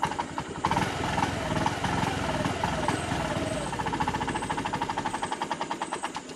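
Honda Activa 6G scooter's single-cylinder engine, out of petrol, being cranked on the electric starter without catching: fast even strokes that cut off suddenly near the end.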